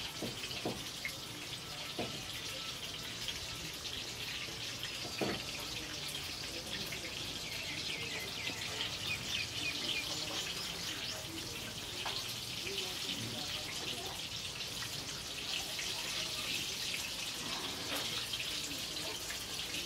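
Besan-battered tomato pakoras deep-frying in hot oil in a kadhai: a steady crackling sizzle, the 'chhan chhan' that comes from the water the tomatoes release as they cook. A few light clicks are heard, around two seconds in and about five seconds in.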